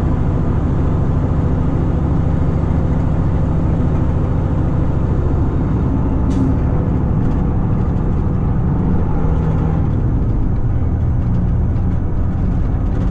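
Caterpillar C15 Acert inline-six diesel of a Peterbilt 389 semi truck running steadily under way, with tyre and road noise. Its note drops about ten seconds in.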